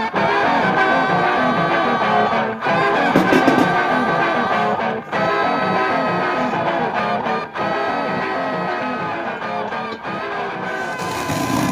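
Guitar-led background music playing steadily, with a few brief dips in level.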